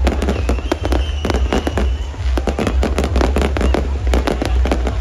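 Aerial fireworks display: a dense, continuous barrage of crackling bursts and deep booms, many cracks a second with no pause. A thin high whistle rises above the crackle from about half a second to two seconds in.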